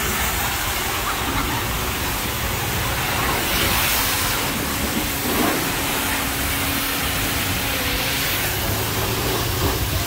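Steady hiss of a self-serve car wash's pressure wand spraying water.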